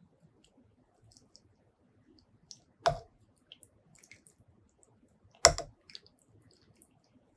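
Close-miked eating sounds: scattered small wet mouth clicks, with two loud sharp crunches or knocks about two and a half seconds apart.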